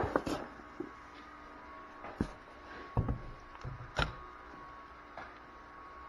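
Handling noise from a motorized-bicycle kit engine being lifted out of its cardboard box and set down on a workbench: a few separate knocks and rustles, the sharpest right at the start.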